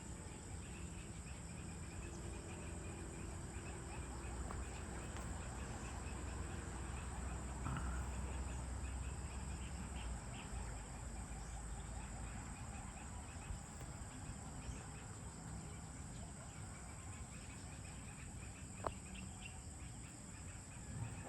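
Outdoor dusk ambience: birds and fowl calling faintly over a steady high-pitched insect drone and a low rumble, with a single sharp click near the end.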